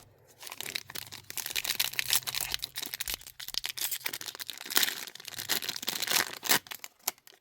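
Foil trading-card pack wrapper crinkling and tearing, with cards being handled, a dense run of crackles and snaps that dies away near the end.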